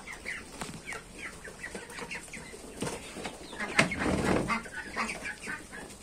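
Mixed flock of domestic ducks and chickens feeding, with many short clucking calls throughout. About four seconds in comes a brief, louder flurry of wings flapping.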